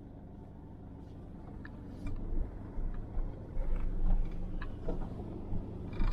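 Four-wheel-drive vehicle's engine running with a steady low hum, with irregular knocks and thumps starting about two seconds in as it drives over rough ground.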